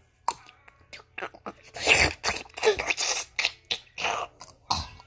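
A boy making mouth noises right at a phone's microphone: a string of irregular short pops and smacks, about one or two a second.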